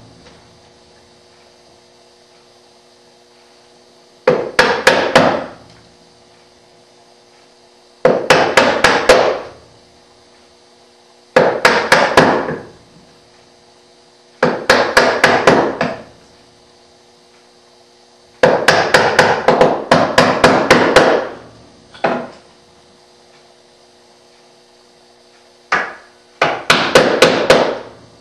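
A chisel being struck in runs of rapid light taps, chopping into a wooden drawer front along a scribed line to cut a half-blind dovetail socket. There are about eight runs of quick taps, each around a second long, with pauses of a few seconds between them.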